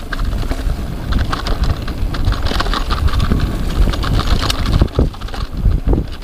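Rockrider XC50 mountain bike going fast downhill on a dirt trail: tyres rolling over loose ground and the bike rattling over bumps, with wind rumbling on the GoPro's microphone.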